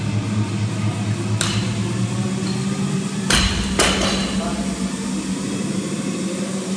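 A loaded barbell with rubber bumper plates dropped onto the gym floor: sharp thuds, the last two about half a second apart as the bar lands and bounces.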